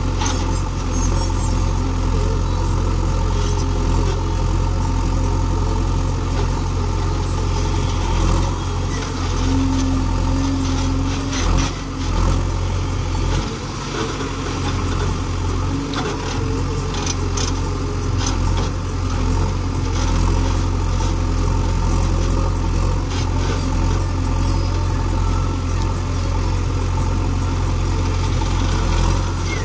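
JCB 3DX backhoe loader's four-cylinder diesel engine running steadily under working load as the backhoe digs and dumps soil. A few short knocks are heard along the way.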